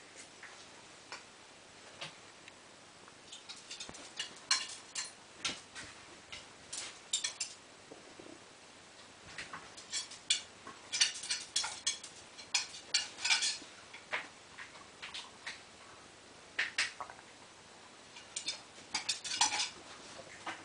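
A small dog and kittens playing on a tile floor: irregular clusters of sharp clicks and light rattles, densest in a few flurries.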